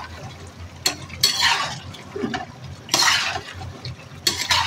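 Perforated metal skimmer stirring and scraping thick mutton-and-tomato gravy in a karahi, in about five separate strokes. This is the bhunai stage, with the tomato water cooking down.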